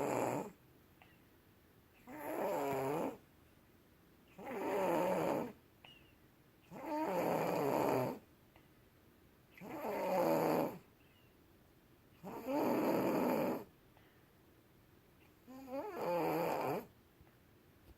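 A sleeping person snoring in a steady rhythm: about seven snores, one every two and a half seconds or so. Each lasts about a second, with quiet breathing between.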